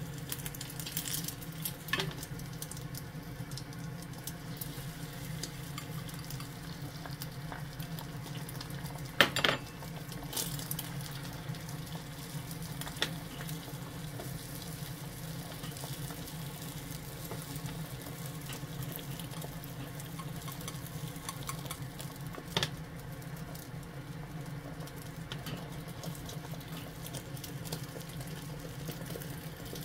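Beaten egg sizzling in a rectangular tamagoyaki pan over a gas burner, over a steady low hum. A few sharp knocks of the metal pan and chopsticks break in, the loudest about nine seconds in and again about twenty-two seconds in.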